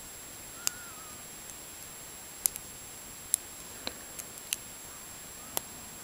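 Steel lock pick and tension wrench working the pin tumblers of a Master Lock No. 5D laminated padlock as it is single-pin picked: about seven sharp, irregular metallic clicks over a steady hiss.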